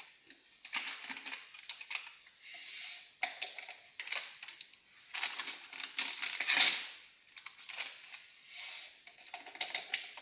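Small paper sachets of vanilla sugar being torn open and shaken out, the paper crinkling and rustling in short irregular bursts.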